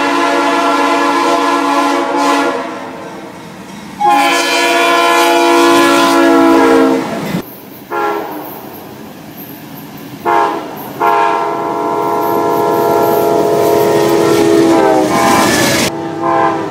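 Diesel locomotive multi-chime air horns sounding chords from approaching trains, in several loud blasts. In the middle there are two long blasts, two short ones and then a long held blast, like a grade-crossing signal.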